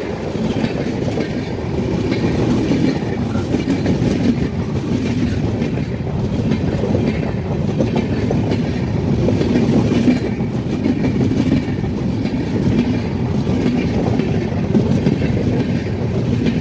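Passenger coaches of the Dehradun–Subedarganj Express rolling past at close range: a loud, steady rumble of steel wheels on the rails, swelling gently as each coach goes by.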